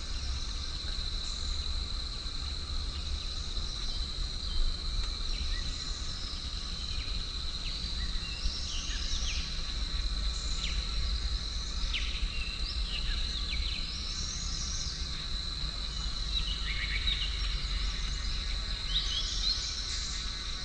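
Forest insects buzzing as one steady high-pitched drone, with birds chirping over it in short calls that come more often in the second half, and a low wind rumble beneath.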